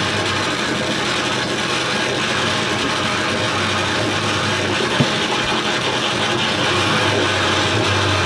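Improvised electronic noise music: a dense, steady wall of amplified rasping, grinding noise over a low hum, with one sharp click about five seconds in.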